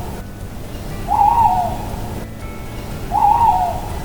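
Owl hooting: two hoots about two seconds apart, each under a second long.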